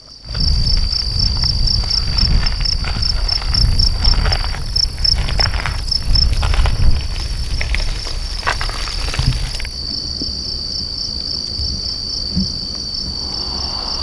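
Crickets chirping in a steady, high-pitched pulsing trill. For about the first ten seconds it is overlaid by louder low rumbling and rustling, which then stops, leaving the crickets alone.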